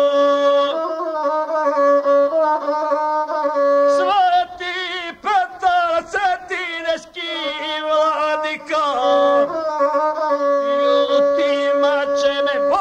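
Gusle, the single-string bowed folk fiddle, playing a droning, ornamented melody. About four seconds in, a guslar's wavering, ornamented voice comes in, chanting epic verse over it.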